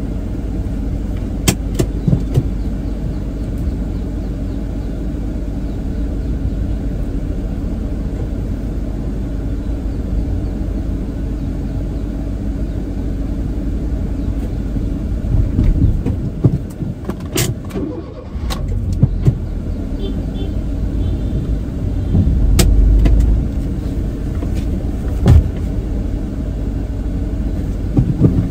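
Steady engine and road rumble heard inside a moving car's cabin, with a few sharp clicks or knocks scattered through it.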